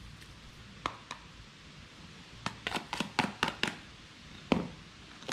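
Light clicks and taps from a spoon and a tin of Old Bay seasoning as seasoning is spooned and shaken over cooked crabs, with a quick run of about eight taps in the middle and a single tap near the end.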